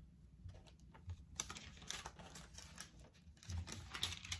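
Faint, irregular rustles and light clicks of paper: thin Bible pages being handled and turned.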